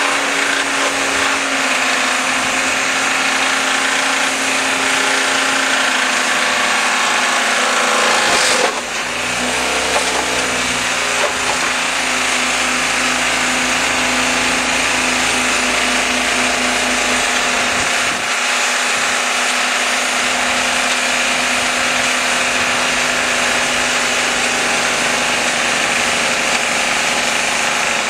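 Ford Falcon XE's 250 cubic-inch (4.1 L) straight-six engine running hard and steadily, deliberately being run to destruction as it begins to smoke. The note dips briefly about nine seconds in, then holds steady again.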